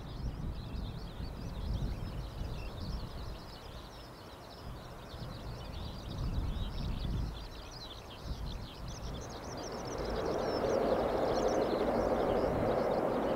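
Open-air ambience with wind rumble and a steady chatter of birds chirping. About ten seconds in, the rushing noise of an approaching vehicle grows louder and holds.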